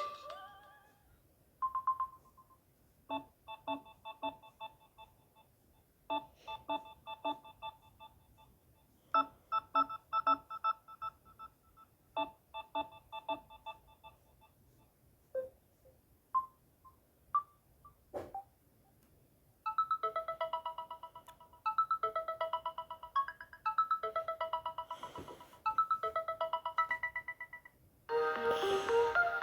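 Samsung Galaxy A16 stock ringtones playing one after another. A short electronic tune of bell-like notes repeats about every three seconds, then a few scattered notes follow, and from about twenty seconds in a faster, trilling tune plays. Near the end a louder, fuller ringtone begins.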